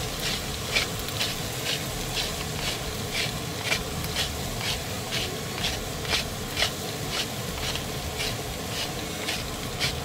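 Wooden salt mill being twisted over the pan, a short grinding rasp about twice a second, over the steady sizzle of onion, garlic and shrimp frying.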